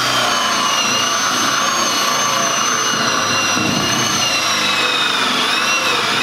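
Cordless drill driving a hole saw through a plywood panel, drilling drainage holes; the motor whines steadily under load, its pitch sagging a little near the end as the saw bites.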